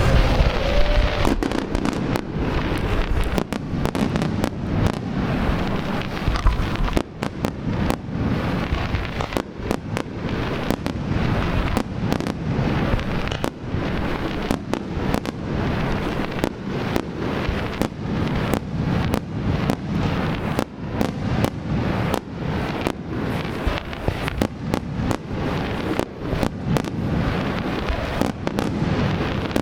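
Japanese starmine fireworks barrage: many shells launched and bursting in quick, overlapping succession, a dense continuous run of booms, pops and crackle with no pauses. A short whistle glides up about a second in.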